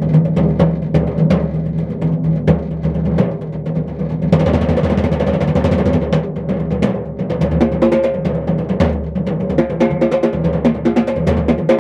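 Snare drum and floor tom played with bare hands: fast strokes that run together into a continuous drum roll about four seconds in, with the drums ringing under the hits.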